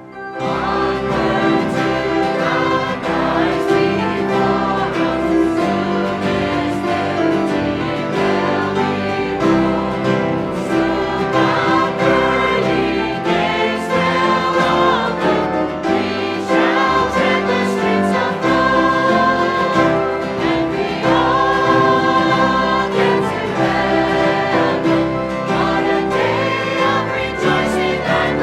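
Church choir singing a gospel song.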